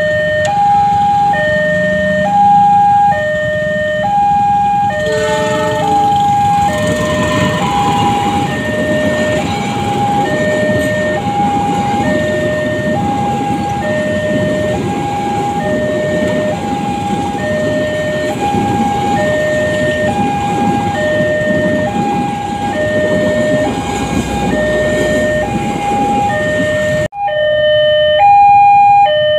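Railway level-crossing warning alarm sounding its electronic two-tone signal, a high and a low note alternating about once a second. From about six seconds in a passenger train runs over the crossing with a steady rumble, which stops abruptly near the end, leaving the alarm alone.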